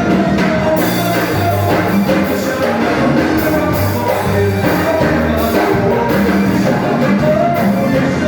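A band playing a song at rehearsal, with bass guitar notes moving under drums and a melody line.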